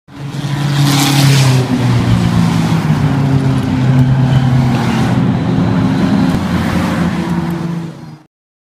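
Race car engines running on a track, several engine notes holding and shifting in pitch. The sound cuts off suddenly near the end.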